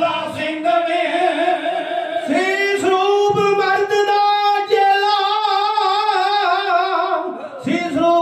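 Kavishri singing: a Punjabi folk vocal group singing long held, high-pitched notes with vibrato, with short breaks between phrases.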